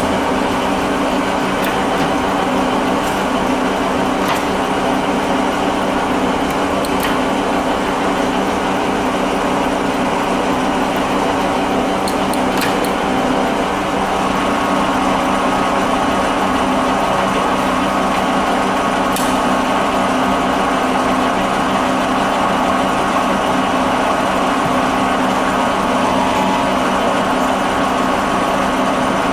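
1948 Warner & Swasey #5 ram-type turret lathe running under power: a steady mechanical hum and whine from its drive and gearing, with a few sharp clicks as the apron levers are worked.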